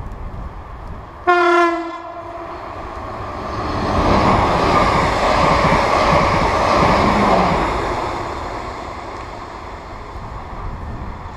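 A Class 444 Siemens Desiro electric multiple unit gives one short blast on its horn about a second in, then passes at speed: a rush of wheels on rail that builds up, holds for a few seconds and fades away.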